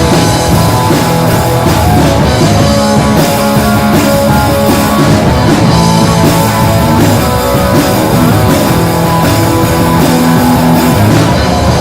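Rock band playing live, with electric guitars, bass guitar and drum kit.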